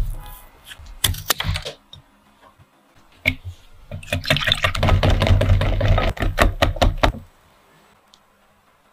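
A cardboard carton of whipping cream is opened with a few sharp clicks and crackles. About four seconds in, a whisk starts beating the cream in a glass bowl, a fast, steady clicking that stops about three seconds later.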